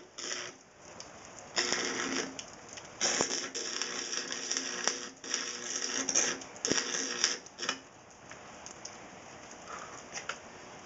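Electric arc welder striking and running a bead, crackling and sizzling in several runs of one to two seconds with a steady hum under them, stopping about eight seconds in.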